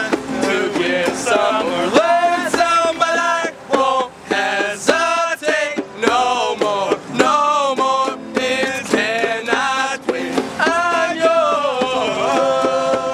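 A group of young men singing a song together, accompanied by a strummed acoustic guitar and a hand drum beaten along.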